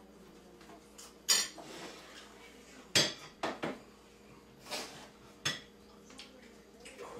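Kitchen clatter: half a dozen sharp clinks and knocks of pans, dishes and utensils being handled, the loudest about a second in and three seconds in.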